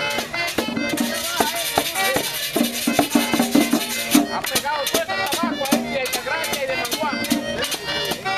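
Live merengue típico on a button accordion, with a tambora drum beaten by hand and the continuous rhythmic scraping of a metal güira.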